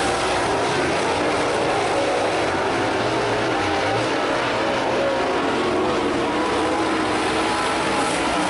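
Super late model dirt-track race cars' V8 engines running at speed, several at once. The sound is steady and loud, with their pitches wavering up and down.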